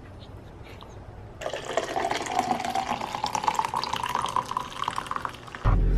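Hot coffee poured from a carafe into a stainless steel tumbler, a steady splashing pour whose pitch rises as the tumbler fills. It starts about a second and a half in and stops abruptly near the end.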